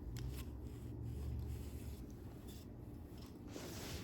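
Faint handling noises from unpacking a tripod: light rustling and a few soft clicks over a low rumble, with a louder rustle near the end.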